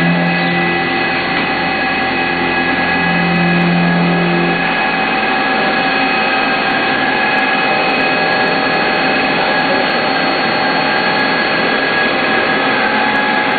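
Mazak CNC machining center milling a steel part: steady whine of the spindle and end mill over the hiss of cutting. A lower hum comes in twice in the first five seconds.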